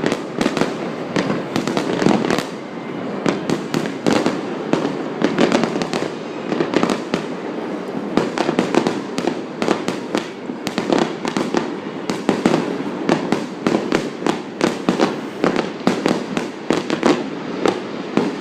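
Fireworks display: a continuous, rapid barrage of bangs and crackles, many shells going off close together.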